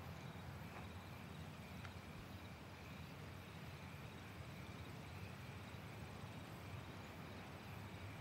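Faint outdoor night ambience: insects such as crickets chirping steadily over a low hum.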